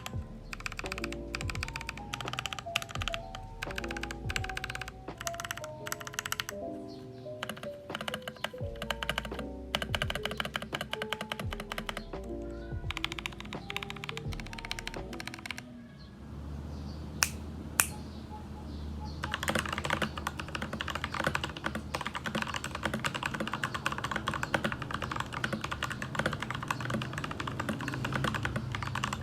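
Fast typing and key smashing on a mechanical keyboard with tactile switches (Durock T1 and Gazzew Boba U4T), a dense stream of key clacks. Background music plays with it for the first half, then stops. Two louder single clacks follow, then continuous rapid typing on the Boba U4T switches over a low steady hum.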